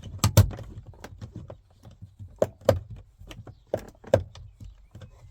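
Plastic interior door trim being pressed and knocked onto its retaining clips in a Mk4 VW Golf door card: a run of sharp plastic clicks and knocks, several in close pairs, as the piece is pushed to pop in.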